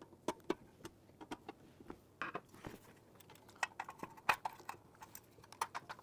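Irregular light clicks, taps and scrapes from a metal 24-port Cat6 patch panel being handled and worked at with a small hand tool while trying to get it open. There is a slightly louder tick a little past four seconds in.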